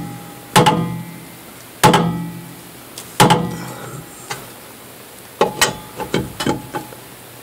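Several sharp metallic clanks, each ringing briefly, as a lug wrench and tools strike the steel wheel and lug nuts during a tire change. The clanks come about a second apart at first, then several quick ones near the end.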